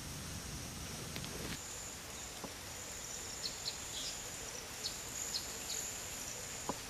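Field ambience among coconut palms: a steady high insect buzz with a scatter of short bird chirps past the middle and two faint clicks. A low rumbling noise in the first second and a half cuts off abruptly.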